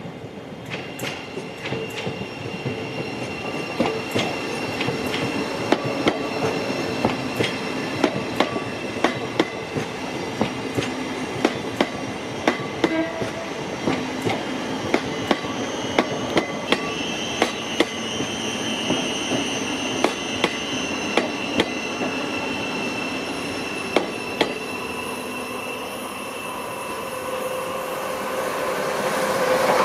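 Siemens Class 717 Desiro City electric multiple unit passing slowly, its wheels clicking irregularly over rail joints and pointwork, dozens of sharp clicks over a steady rumble, with a thin high whine. The sound grows louder near the end as the train draws closest.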